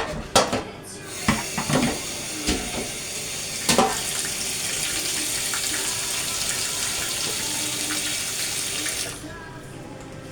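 Kitchen tap running into a sink as a steady rush of water, shut off abruptly about nine seconds in. A few light knocks and clatters sound in the first few seconds.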